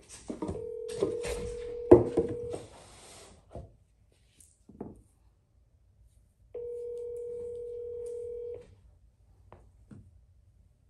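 Telephone ringback tone heard over a phone's speaker: two rings, each a steady hum about two seconds long, six seconds apart, as an outgoing call waits to be answered. A few sharp knocks and handling clicks sound in the first seconds.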